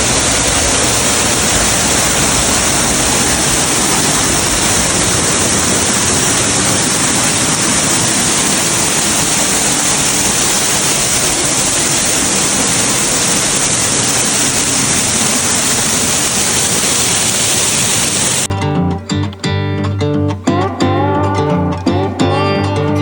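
Steady, loud rush of a waterfall. It cuts off abruptly a few seconds before the end, and acoustic guitar music comes in.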